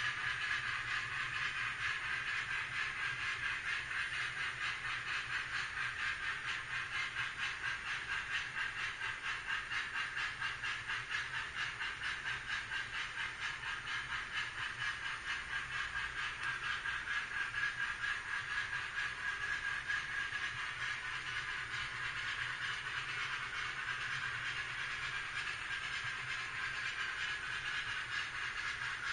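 Empty HO-scale model coal hopper cars rolling past on the track: a steady metallic rolling rattle with a fast, regular clicking of wheels over the rails.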